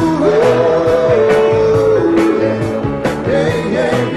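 Live rock band playing, with drums, bass, electric guitar and keyboards under a sung note held for about two seconds before the melody moves on.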